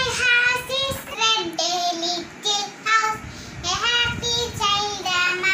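A young girl singing a children's rhyme in a high voice, unaccompanied, in short phrases with brief breaths between lines.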